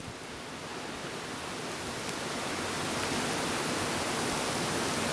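Wind blowing in a snowstorm: a steady hiss that slowly grows louder.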